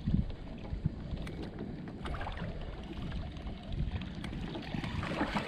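Steady low rumble of wind and water around a small fishing boat, with a few light clicks and knocks.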